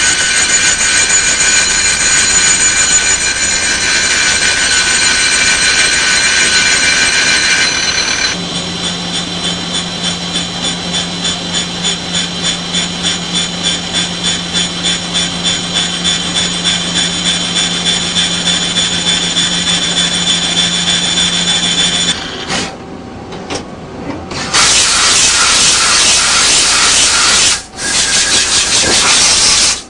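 CNC turning center machining, with a high-pitched whine from the grinding wheel. About eight seconds in it changes to a lower hum that pulses about twice a second as the rotary tool spindle grinds a bore. Near the end, after a brief lull, comes a loud steady hiss.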